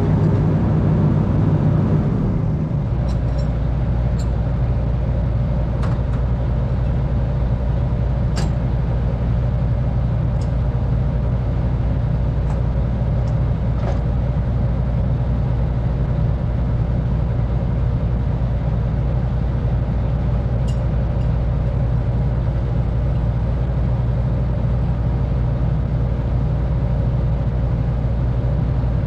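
Amphibious excavator's diesel engine running steadily. Its note changes about two to three seconds in, then holds even, with a few faint clicks now and then.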